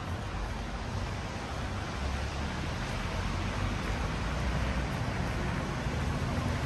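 Steady city street ambience: a low traffic rumble under an even hiss, growing slightly louder near the end.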